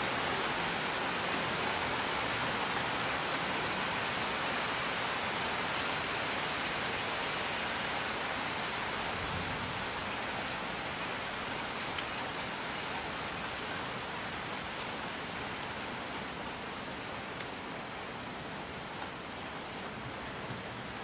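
Heavy rain falling steadily, a dense, even hiss of countless drops, easing slightly toward the end.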